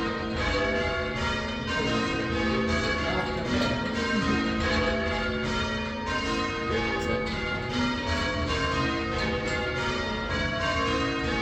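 The original bells of St Martin-in-the-Fields, a ring of church tower bells, ringing call changes: each bell strikes in turn in a steady repeating row, the tones overlapping and ringing on.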